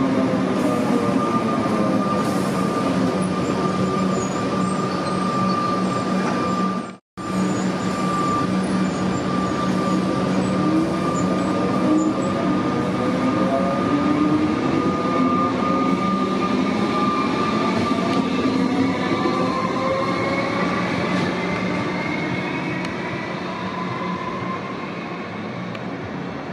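Melbourne Metro electric suburban train running along the elevated track, with a steady high whine and traction motor tones that change pitch. After a brief cut about seven seconds in, a train pulls away, its motor whine rising in pitch as it speeds up and then fading slightly.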